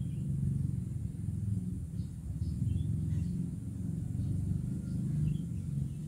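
Low, uneven outdoor rumble, with a few faint, short high chirps scattered through it.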